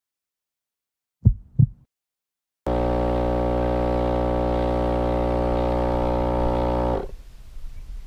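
Two short low thumps, then a steady droning tone with many overtones that starts at full strength, holds level for about four seconds and cuts off abruptly.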